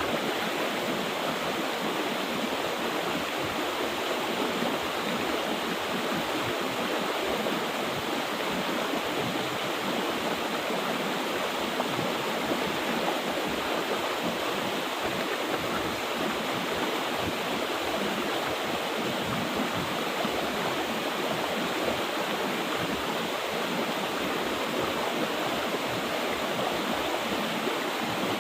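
Mountain river water rushing and splashing over rocks, a steady, even wash of sound.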